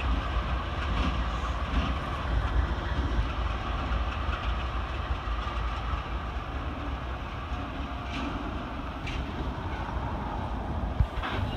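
Freight train with CN diesel locomotives rolling past: a steady rumble of engines and wheels, with occasional clicks from the wheels on the rails.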